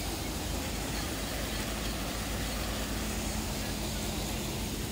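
An engine running steadily: a low, even drone that holds at one level throughout, with a faint steady tone coming through about two seconds in.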